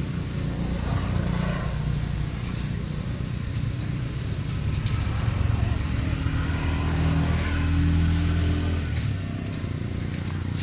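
A motor vehicle's engine running steadily, swelling to its loudest about two-thirds of the way through before easing off.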